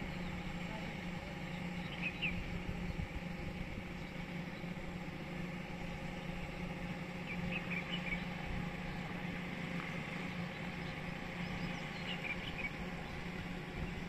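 Steady low machinery hum, with a few short bird chirps about two, eight and twelve seconds in.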